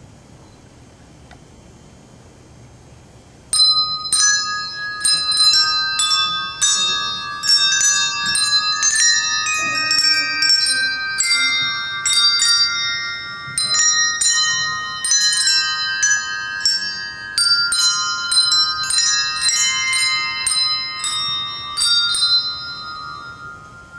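Handbell choir playing a Christmas hymn tune in melody and chords. The bells come in about three and a half seconds in after a quiet start, and their struck notes ring on and overlap. The last notes are left to ring out near the end.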